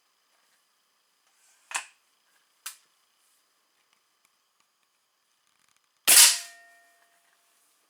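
Two sharp clicks, then a single shot from a Weihrauch HW 80 .22 spring-piston break-barrel air rifle about six seconds in: a sharp crack with a short ringing tail.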